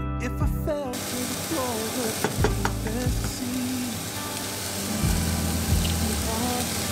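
Hamburger patties frying in a pan: a steady sizzle that starts abruptly about a second in.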